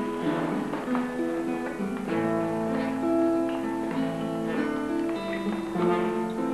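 Two acoustic guitars playing together, a slow run of plucked notes and chords that ring on.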